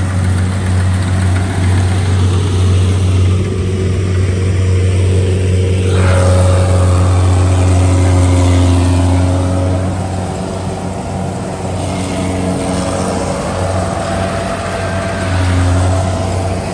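Rice combine harvester's engine running steadily, a loud low hum.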